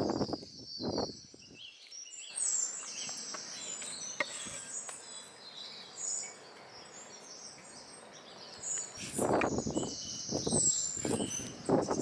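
Chef's knife chopping through a kutum fish into a wooden chopping block: a couple of strokes at the start and a run of chops in the last few seconds. Small birds chirp in between.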